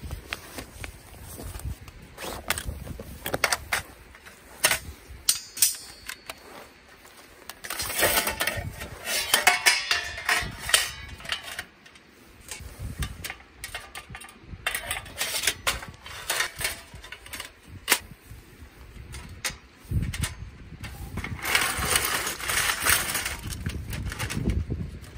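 Stainless-steel fire pit (Petromax PM-FB) being unpacked and assembled by hand: its carry bag rustling, and its metal plates and grill clinking, knocking and scraping against each other and on river stones. There are scattered sharp clicks throughout, with two longer stretches of scraping and rustling, about a third of the way in and near the end.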